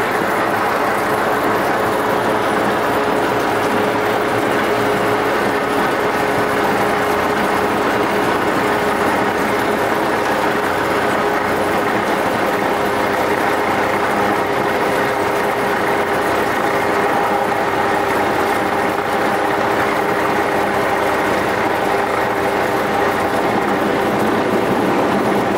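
Cessna 172's piston engine and propeller running steadily, heard from inside the cockpit as a loud, even drone with a constant hum while the plane rolls along the runway.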